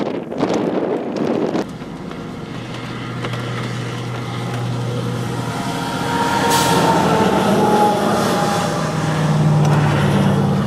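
Wind buffeting the microphone for about a second and a half, cutting off suddenly. A vehicle then runs with a steady low hum, getting louder about six seconds in.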